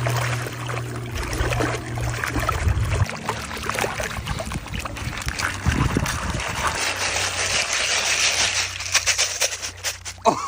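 Water trickling and splashing, with many small clicks through it. A steady low hum runs under it for about the first three seconds, then stops.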